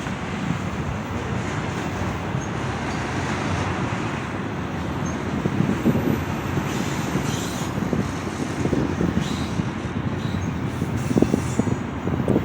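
Steady rumble of passing vehicles, with irregular low thumps that grow louder in the second half.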